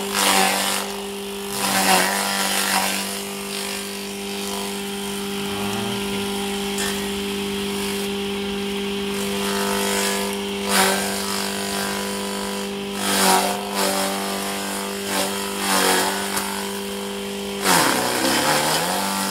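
Small forage chopper running with a steady motor hum while green corn stalks are fed into it, with loud bursts of shredding every few seconds as the stalks are chopped. Near the end the motor drops in pitch under the load and picks back up.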